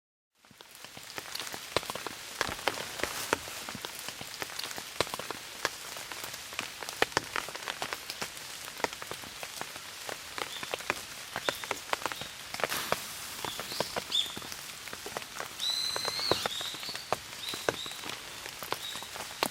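Rain pattering, with many separate drops landing sharply. A few brief high calls sound faintly in the last third.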